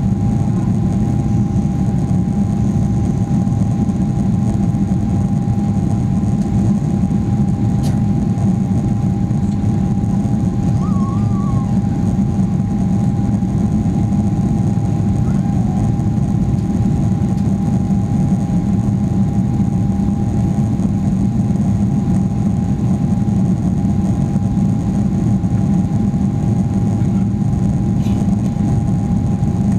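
Boeing 777-300ER's GE90 jet engines running steadily: an even low drone with one constant whine above it, neither rising nor falling.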